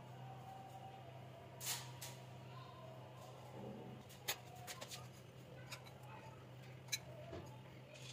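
Faint, sharp clicks and taps of a metal spoon against a mug and a glass bowl as caramel sauce is spooned out and drizzled, a few of them between about four and seven seconds in, over a steady low hum.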